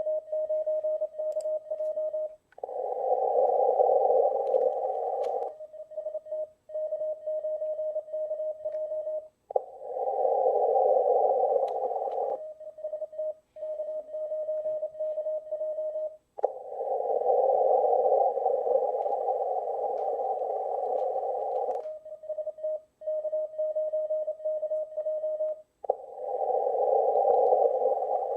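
Morse code on a steady tone of about 600 Hz, keyed in stretches of about four seconds. These alternate with stretches of louder hiss from a 15-metre ham receiver heard through a narrow CW filter, the pattern of CW contest calls with listening gaps between them.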